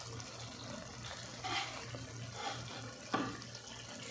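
Mutton karahi simmering in an aluminium karahi over the burner: a steady hiss with a low hum underneath, broken by a few light knocks, the sharpest about three seconds in.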